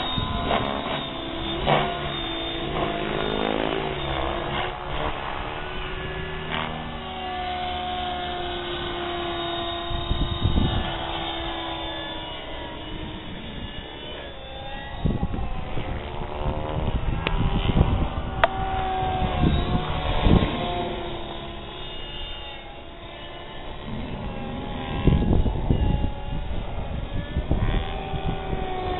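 Compass 6HV electric radio-controlled helicopter in flight: a steady motor and rotor whine that glides up and down in pitch as it manoeuvres, with the rotor blades whooshing.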